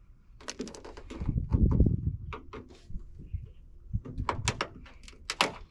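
Pry bar working brittle, dry-rotted window run channel rubber out of a car's door frame: a string of scraping clicks and knocks, with a cluster of low bumps about a second and a half in and more clicks near the end.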